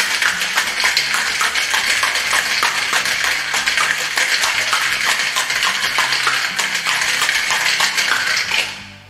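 Ice cubes rattling inside a metal cocktail shaker shaken briskly, a fast, continuous clatter that stops just before the end.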